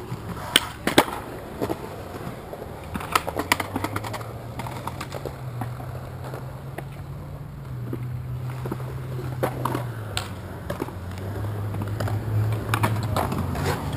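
Skateboard wheels rolling on concrete, with scattered sharp clicks and knocks of boards. A low rolling rumble sets in about four seconds in and grows louder toward the end.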